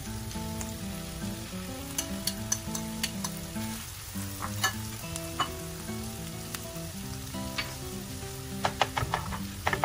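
Butter and olive oil sizzling steadily in a nonstick skillet of diced onion and capsicum as chicken patty meat is spooned in and pressed down. A metal spoon or spatula clicks and scrapes against the pan and bowl now and then, in a quick cluster near the end.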